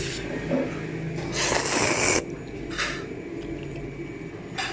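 Noodles slurped off chopsticks: one long, hissing slurp about a second and a half in, then a shorter one about a second later.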